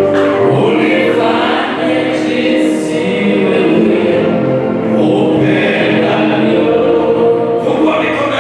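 Many voices singing a gospel worship song together in long, held notes.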